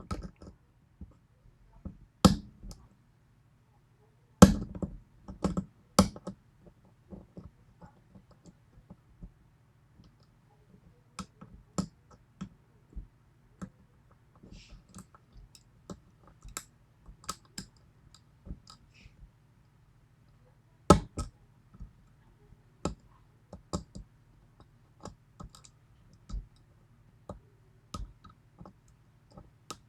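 Irregular small metallic clicks and taps of a lock pick and tension wrench working the pins of a 6-pin Yale pin-tumbler lock, with a few sharper, louder clicks about two, four and a half, six and twenty-one seconds in.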